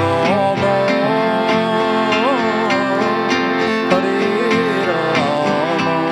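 Kirtan tune playing: a sustained drone of held chords under an ornamented melody line that slides in pitch, with regular percussion strokes keeping the beat.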